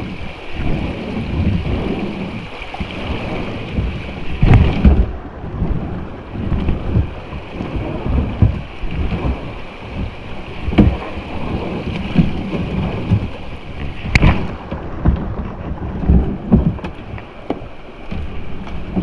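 Rushing creek water around a kayak running rapids, with low, uneven buffeting on the microphone and two sharp knocks, one about four seconds in and one about fourteen seconds in.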